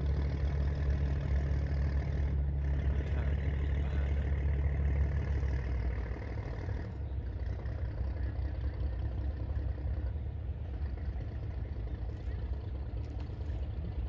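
An engine idling with a steady low drone over a steady hiss. The drone weakens about six seconds in.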